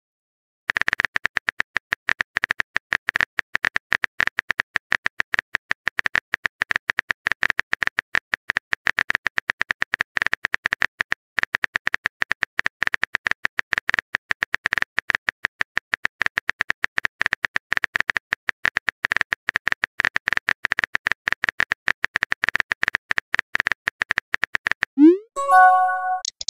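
Texting-app keyboard sound effect: rapid typing clicks, many a second, with a brief pause near the middle. The typing stops near the end and a short rising 'message sent' tone plays.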